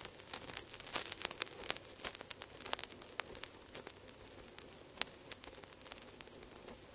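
Stylus riding the lead-in groove of a vinyl LP: irregular clicks and pops over faint surface hiss, the pops thinning out toward the end.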